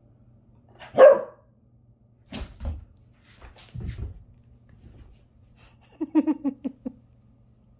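Puppy barking: one sharp bark about a second in, a few dull knocks, then a quick run of short, rapid barks near the end.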